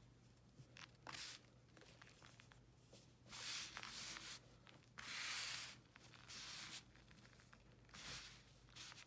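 Crumbled pieces of a dried baking soda, chalk and calcium carbonate mix scooped up by hand and let fall, in about five soft, hissy rustling pours, the longest about half a second.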